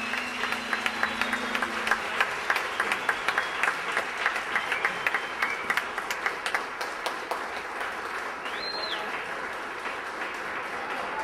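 Theatre audience applauding as the band's final held note dies away in the first second or two. The clapping is loudest over the first few seconds and then thins, and a single high whistle rises, holds and falls about eight and a half seconds in.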